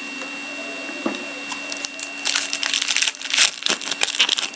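Foil wrapper of a hockey trading-card pack being torn open and crinkled: a run of crackling starting about two seconds in. A steady hum sits underneath throughout.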